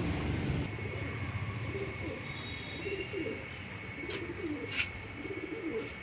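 Racing homer pigeons cooing, a series of low warbling coos repeated one after another. A few sharp clicks sound near the end.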